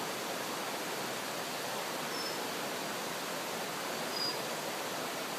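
Steady, even outdoor background hiss, with two brief high-pitched chirps about two seconds in and again two seconds later.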